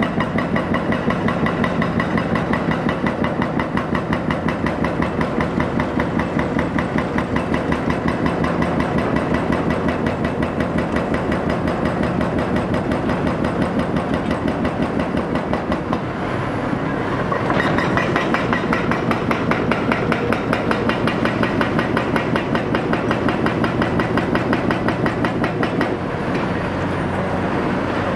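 Hydraulic breaker on a Cat 336F excavator hammering concrete in rapid, steady blows over the excavator's diesel engine running.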